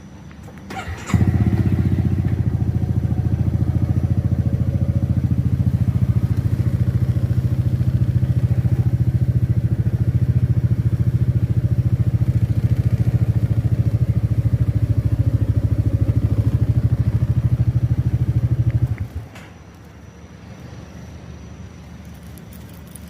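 Honda Forza 300 scooter's single-cylinder engine starting about a second in, idling steadily for about eighteen seconds, then shutting off abruptly.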